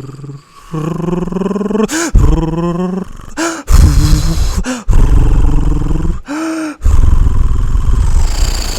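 A man imitating jet aircraft noises with his voice: a string of loud vocal bursts, some sliding up and down in pitch, others low and rough, separated by short breaks.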